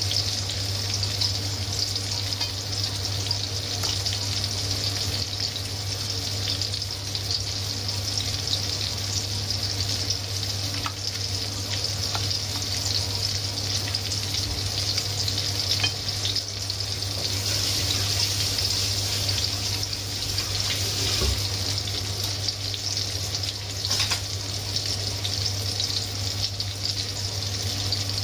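Breaded pork chops sizzling steadily in hot oil in a frying pan, with a few scattered pops. A steady low hum runs underneath.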